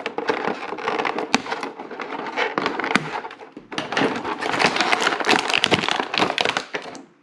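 Handling noise from a plastic toy action figure and its packaging: dense crinkling, crackling plastic with many small clicks and taps, thinner about three seconds in, busiest over the last few seconds, then fading out.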